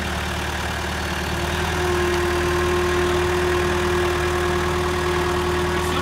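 John Deere 450H crawler dozer's diesel engine running steadily. A steady whine joins in about two seconds in, and the sound grows a little louder.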